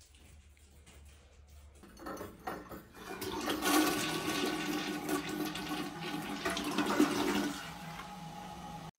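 Toilet flushing: the water rushes in about two seconds in, runs loudly for several seconds with a steady hiss and hum, then dies down near the end.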